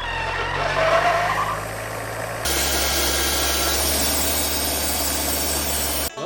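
An engine running steadily in two takes joined by an abrupt cut about two and a half seconds in, the second louder and steadier; it stops suddenly near the end.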